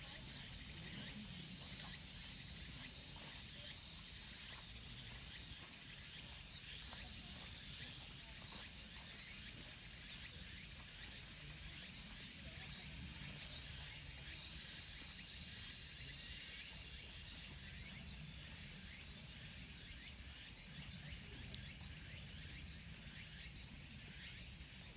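A dense chorus of insects buzzing steadily at a high pitch, unchanging throughout.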